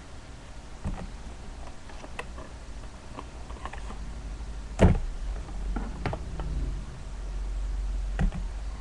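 A few scattered clicks and knocks over a low steady hum, the loudest about five seconds in.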